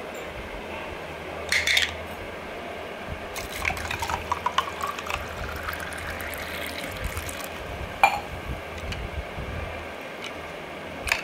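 Water poured into a clear tumbler for a few seconds, its pitch rising as the tumbler fills. Short knocks come before and after, the sharpest about eight seconds in, as things are set against the tumbler.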